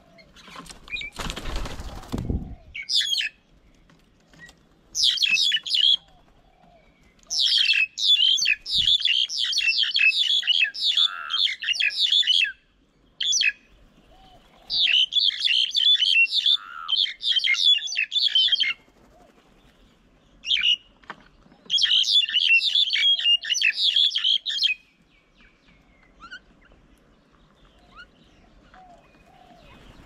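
A short rush of flapping wings about a second in. Then mynas and starlings give rapid chattering calls in several bouts of a few seconds each, with short pauses between.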